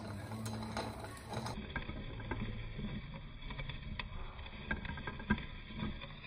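Hand-cranked piston ring filer grinding the end gap of a piston ring: soft, irregular scraping with scattered light clicks, as the ring end is filed to reach the required ring gap.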